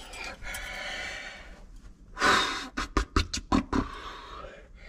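A person's heavy breathing and a sharp exhale, then a quick run of about seven sharp clicks.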